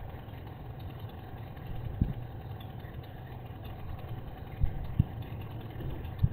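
An engine running steadily with a low drone, with a few brief low thumps.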